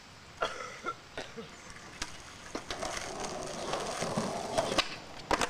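Skateboard wheels rolling over rough concrete, growing louder from about three seconds in, with scattered clacks of the board on the pavement and a quick run of clacks near the end.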